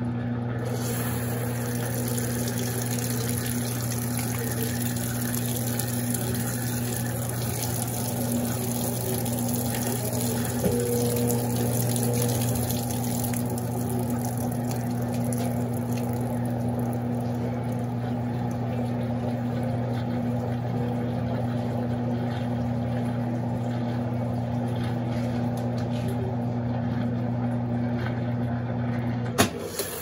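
Consul Super Cargo CWL10A top-loading washing machine running a spin-and-drain stage between wash and rinse: a steady motor and pump hum with water running as the basket turns the load. The hum cuts off with a short clunk about a second before the end.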